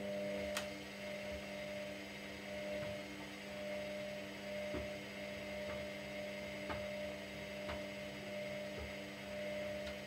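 Front-loading washer-dryer's motor turning the drum of laundry: a steady electric hum with a few light knocks from the tumbling load, cutting off right at the end as the drum stops.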